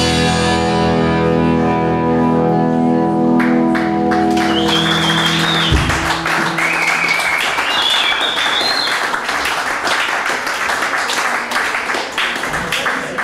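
A blues band's final chord ringing out on electric cigar-box guitars with cymbal wash, stopped about six seconds in. Audience clapping and whistling starts about three and a half seconds in and carries on.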